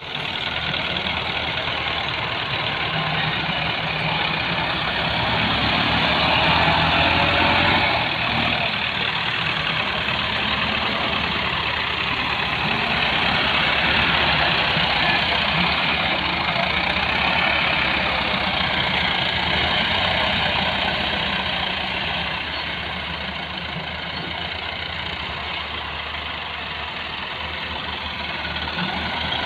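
Diesel farm tractor engines running under load as the tractors push soil with front blades. The engine noise swells and eases as they work.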